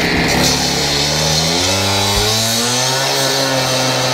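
Hilti cut-off saw running and cutting into a steel railroad rail; its pitch rises about halfway through as it speeds up, then holds steady, with a high hiss of the cut.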